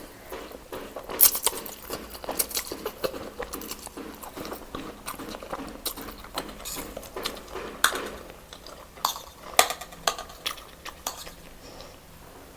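Close-up eating sounds: irregular chewing and biting, with sharp clicks of utensils against dishes, the loudest about a second in and again near 8 and 10 seconds.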